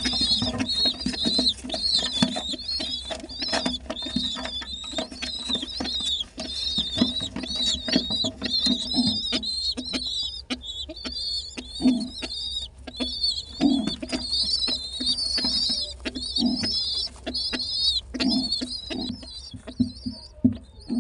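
Pigeon squab begging: a rapid, unbroken run of high, wavering squeaks as it pushes at the parent's beak to be fed, with many short soft knocks mixed in.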